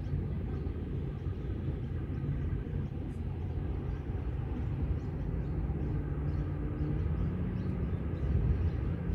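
Steady low rumble of distant engine noise, with one engine hum slowly rising in pitch. Faint small bird chirps sound high above it.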